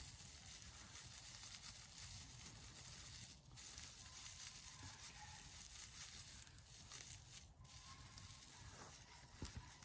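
Faint, steady rustling and crackling of a dry grass tinder bundle being worked in the hands, with brief pauses.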